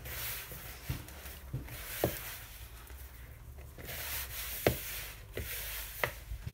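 Hands rubbing and pressing a dry, crumbly flour-and-milk dough in a plastic mixing bowl, a scraping hiss that rises and falls with each stroke, broken by a few sharp knocks. The dough is still shaggy and stiff, being gathered together.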